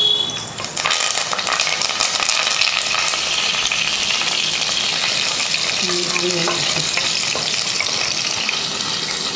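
Curry leaves and green chilies sizzling and crackling in hot oil, the tempering of mustard seeds, fenugreek and chana dal, stirred with a spatula in a metal pot. The crackle flares up just under a second in as the leaves hit the oil, then holds steady.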